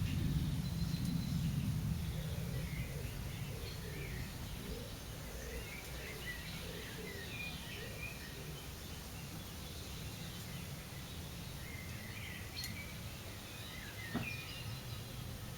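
Outdoor ambience of scattered bird chirps and calls over a steady low rumble, the rumble louder in the first couple of seconds, with one short click near the end.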